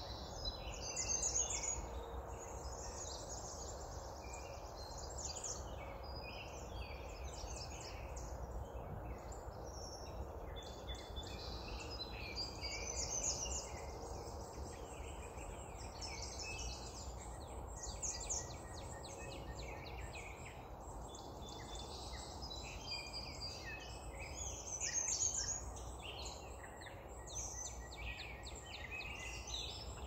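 Dawn chorus of many songbirds singing at once, dense overlapping chirps and trills with a few louder flurries, over a steady low background rumble.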